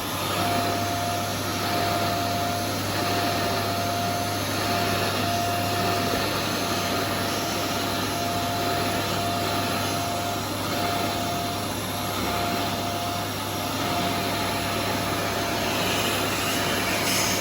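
Von VAVC-16DMR bagless vacuum cleaner running steadily: a constant rush of air with a steady mid-pitched whine and a low hum from its motor.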